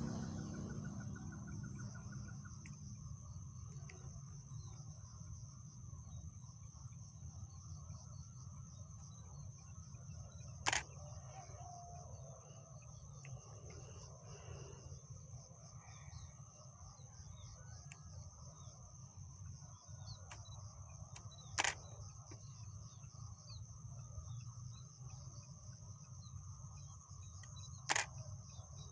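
Steady high-pitched drone of insects calling in chorus, with a few faint, scattered bird chirps over a low constant rumble. Three sharp clicks stand out: about a third of the way in, about two-thirds through, and near the end.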